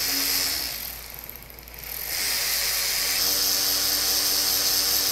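Hercules HD033B 12-volt cordless 3/8-inch ratchet with a brushed motor, running with no load at full trigger: a steady motor whine that eases briefly about a second in, then holds steady from about two seconds on. The head is spinning at its top free speed, about 289 RPM.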